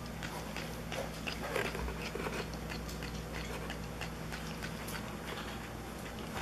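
Cat biting off and chewing blades of cat grass: a run of quick, irregular clicks.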